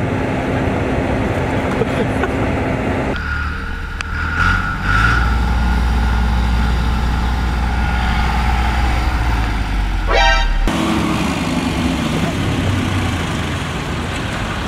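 Old farm tractor engine running slowly, a low steady rumble that is loudest and closest from about three seconds in until near the eleventh second, where it is heard from on the tractor itself.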